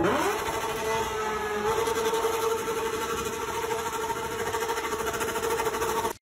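An engine revs up and is held at a steady high speed with a fast, even pulse. It cuts off suddenly near the end.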